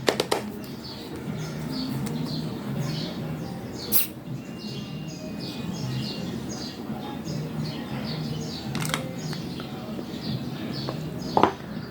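Small cordless electric screwdriver running as it drives a stiff screw, with birds chirping rapidly and repeatedly in the background and a few sharp clicks.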